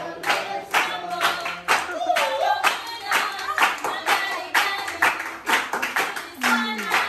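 A group of children singing together and clapping their hands in a steady rhythm.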